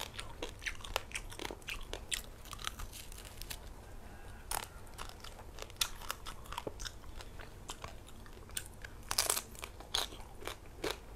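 A person chewing crispy roast pork crackling: irregular sharp crunches from bites and chewing, with a louder burst of crunching about nine seconds in.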